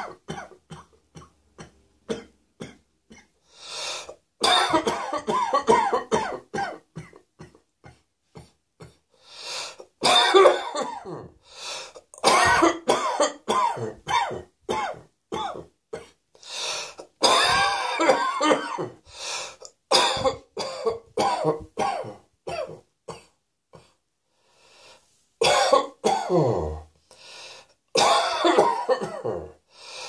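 A person coughing over and over in fits: runs of short, rapid coughs, with brief quieter pauses between the fits.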